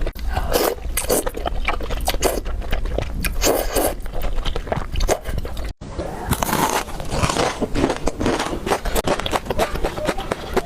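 Close-miked eating sounds: biting and chewing with wet, crackly mouth noises, first over a bowl of noodle soup. After a brief dropout about halfway, biting and chewing into a hot dog.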